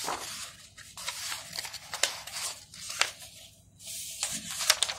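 Textbook pages being turned by hand: a series of short papery rustles and swishes as the pages are flipped and smoothed flat.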